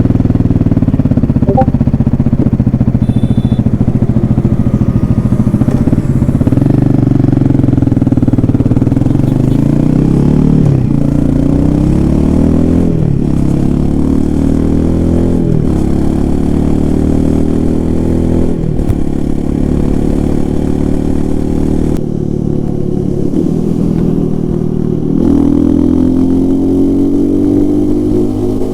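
Royal Enfield Himalayan 450's single-cylinder engine under hard acceleration. It runs steadily at first, then climbs through the gears: the pitch rises and drops sharply at each upshift, about four times, and climbs again near the end.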